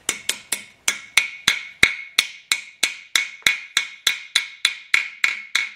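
Ball-peen hammer tapping a core plug into its bore in a Willys F-head engine block, about three taps a second in a steady rhythm, each with a short metallic ring, driving the plug down onto its seating shoulder.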